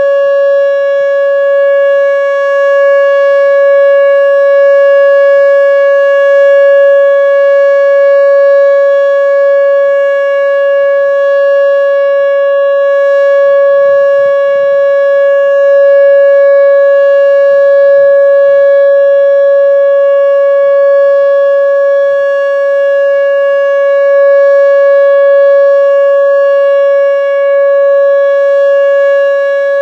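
Whelen WPS-2910 electronic outdoor warning siren sounding its steady alert tone, very loud. It is one unbroken pitched tone that holds without rising or falling.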